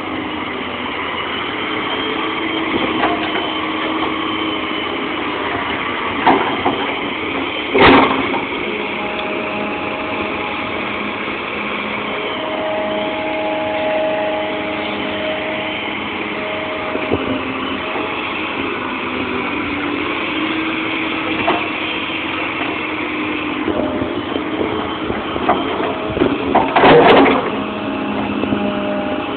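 Fiatallis FX215 hydraulic excavator's diesel engine running steadily under load while it digs and swings, its pitch shifting as the hydraulics work. Two loud clanks stand out, about eight seconds in and near the end.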